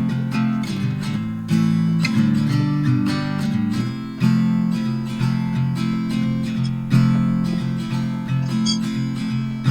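Background music: acoustic guitar strumming chords at a steady rhythm.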